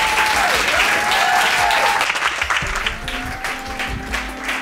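Audience applauding, with a melody of music playing over the clapping; the applause eases a little after about three seconds.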